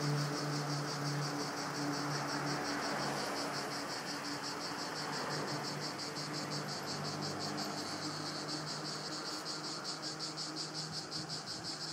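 Cicadas chirring in a continuous high buzz that pulses about four or five times a second, growing clearer toward the end. A low hum fades away over the first few seconds.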